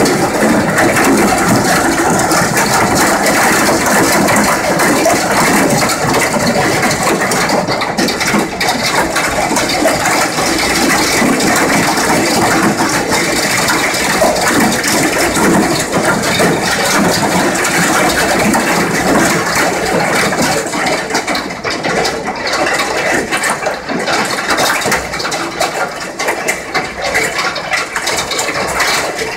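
Large hailstones, with rain, hitting the office's glass windows at high speed: a dense, continuous clatter of hard impacts on the glass, easing slightly in the last third.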